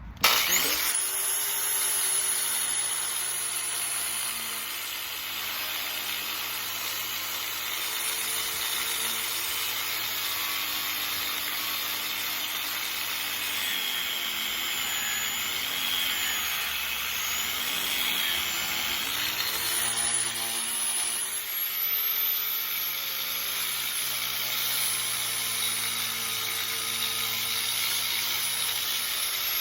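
Angle grinder grinding paint off a metal door hinge, starting up sharply right at the start and running continuously, its pitch dipping and recovering as it is pressed into the work.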